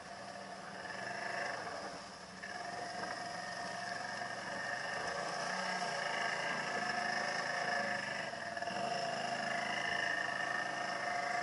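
ATV engine running under load with a steady whine while the quad wades through water, with water splashing and churning around it. The sound dips briefly about two seconds in, then gets louder and holds steady.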